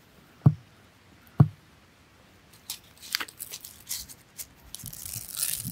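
Two dull thumps about half a second and a second and a half in, then seed grain poured from a plastic bottle onto a cardboard trapdoor: a dry pattering rattle of many small grains that grows louder toward the end.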